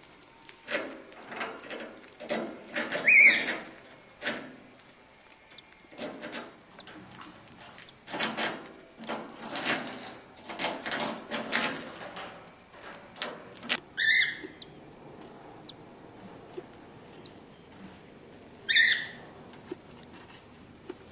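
Cockatiels stirring in their nest: repeated scratchy rustling, busiest in the first part, with three short high chirps spread through it.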